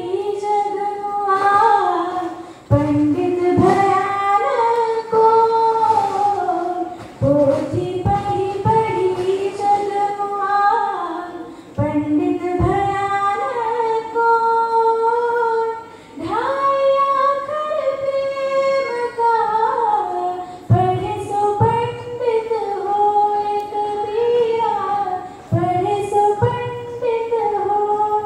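A girl singing solo into a microphone without instrumental accompaniment: held notes that glide between pitches, in phrases broken by short breaths.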